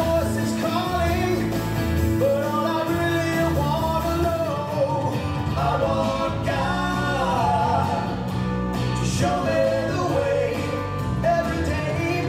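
Recorded song playing: a voice singing a melody over instrumental backing with held bass notes, the track the puppets lip-sync to.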